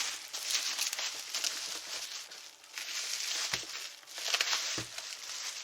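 Crinkling, rustling handling noise, with two short knocks about three and a half and nearly five seconds in.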